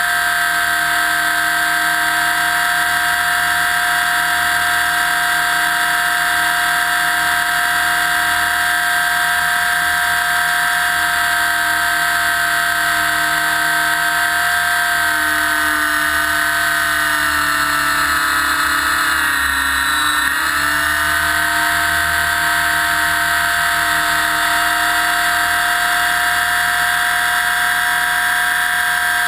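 Align T-Rex 600 EFL Pro electric RC helicopter in flight, heard from a camera mounted on its side. The electric motor and main gear give a loud, steady high whine under the rotor noise. The pitch sags for a few seconds just past the middle, then comes back up, as the rotor takes load.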